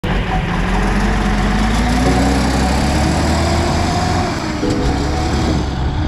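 Diesel engine of an International cabover semi truck running, its pitch rising briefly about two seconds in.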